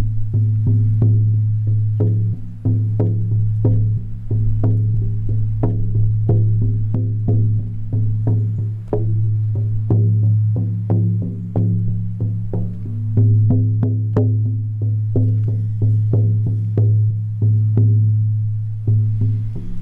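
18-inch horse-skin shamanic frame drum on an ash frame, struck with a firm beater in a steady beat of about two to three strokes a second, each stroke sounding over a deep, sustained boom.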